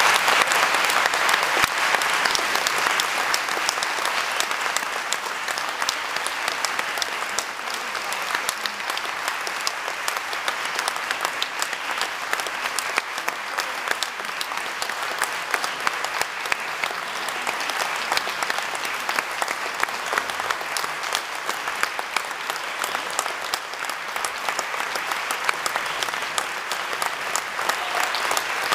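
Theatre audience applauding, a dense, steady clapping that is loudest in the first few seconds and then settles a little lower.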